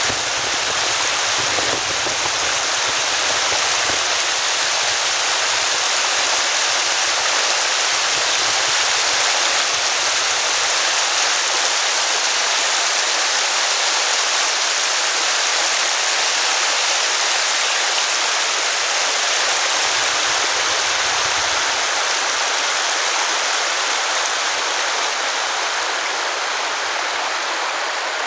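Floodwater rushing and churning across a flooded road: a steady, loud hiss of fast-moving water. It eases slightly near the end.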